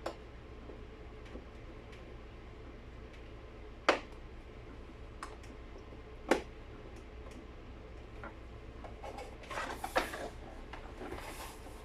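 Sharp plastic clicks and taps a few seconds apart as a vacuum cleaner's plastic housing is handled and pried at. A burst of scraping and rattling of the parts comes near the end.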